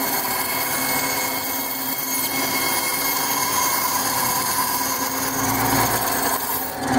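Benchtop bandsaw running steadily, its blade cutting through a block of balsa wood. The sound dips briefly near the end.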